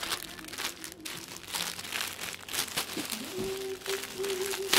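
Packaging and clothes crinkling and rustling as they are handled while a parcel is unpacked. A steady held tone sounds for about a second and a half near the end.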